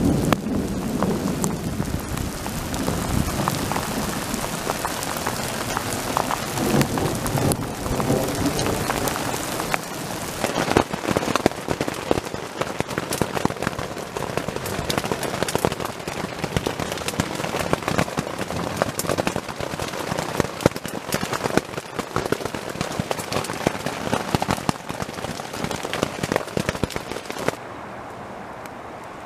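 Hail and rain hitting a tent, a dense run of sharp ticks over a steady hiss, with low thunder rumbling in the first several seconds. The pelting cuts off suddenly near the end, leaving a quieter steady hiss.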